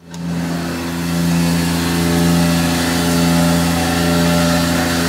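Tormach 1100MX CNC mill machining aluminum with an end mill under flood coolant: a steady spindle and cutting tone over the hiss of coolant spray.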